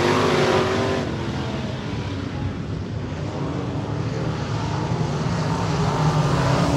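Dirt-track race car engines running hard around the oval. They are loud at first as the pack pulls away into the turn, fade over the next couple of seconds, then build again near the end as the cars come back around.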